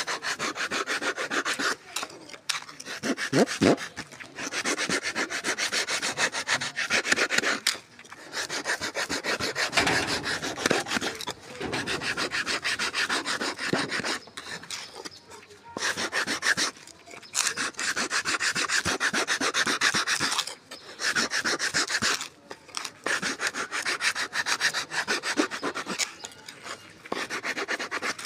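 Sandpaper wrapped round a wooden block scrubbed rapidly back and forth against the edge of a round disc: a dry, rasping scratch in bouts of a few seconds, with short pauses between them.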